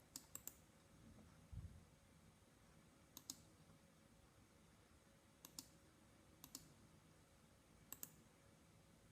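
Computer mouse button clicking, faint, five times, each a quick press-and-release pair of clicks. A soft low thump about one and a half seconds in.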